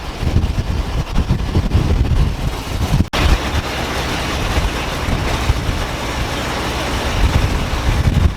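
Wind buffeting the microphone over a running motor. About three seconds in the sound cuts off abruptly and a steadier, hissier engine-and-wind noise takes over.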